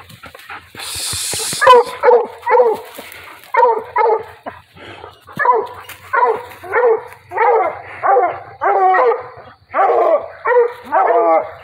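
Coonhound barking treed: a steady string of loud, pitched tree barks at about one a second, the sign of a hound that has a raccoon up the tree.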